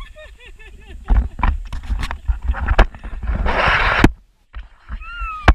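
Irregular knocking and clattering of bamboo slats on a suspension footbridge as people step and shift on it, with a short burst of hiss in the middle and a brief high, falling call near the end.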